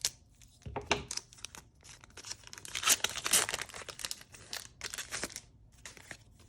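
A Pokémon booster pack's foil wrapper being torn open and crinkled, in short irregular crackles that are loudest around the middle.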